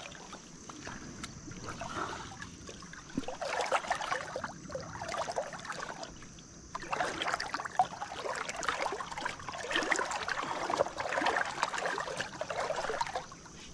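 River water splashing and trickling, with small irregular splashes coming one after another.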